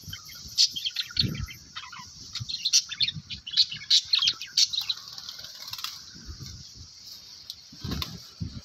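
Budgerigars chirping and chattering in quick, busy calls, thinning out after about six seconds, with a few low muffled bumps underneath.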